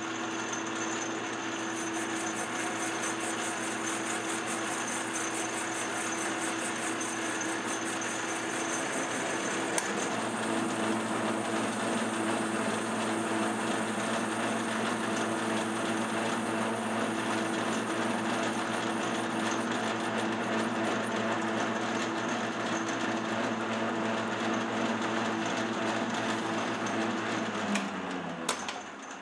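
Metal lathe running under power as its tool cuts a metal workpiece: a steady whine from the motor and gears, with cutting noise. Near the end the pitch slides down and the sound fades as the spindle winds down.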